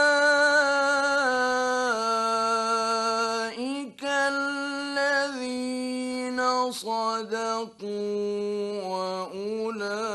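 A male Quran reciter chanting in the melodic mujawwad style. He holds long ornamented notes that step down in pitch, with short breaks about four seconds in and near eight seconds.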